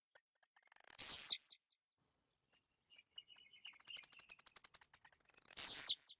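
Blue-black grassquit (tiziu) singing twice: each phrase is a run of quick, high ticking notes that ends in a loud note sweeping downward.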